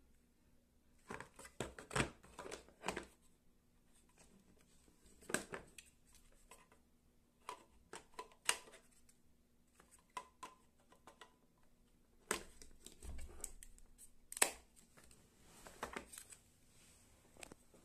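Plastic handling noises from Bosch 12 V Li-ion battery packs and the cordless drill being turned over in hand and fitted together over their plastic case: scattered light clicks, taps and knocks in irregular clusters, the sharpest about two seconds in and about fourteen seconds in.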